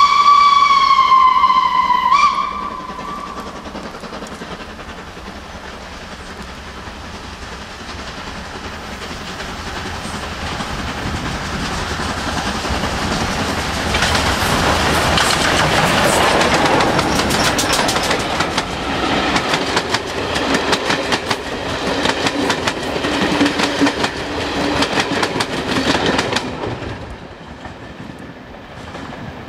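LNER B1 steam locomotive 61306 'Mayflower' sounds one whistle of about two seconds. It then approaches with its train and passes close by, growing louder, with a rapid clatter of wheels over the rail joints that dies away quickly near the end.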